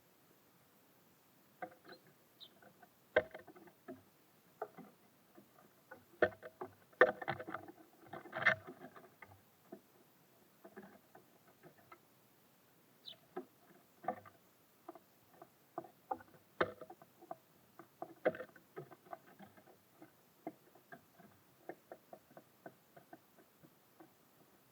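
Small birds at a wooden feeder, pecking and hopping: irregular sharp taps and knocks, busiest in a flurry about a quarter of the way through, with a couple of brief high chirps.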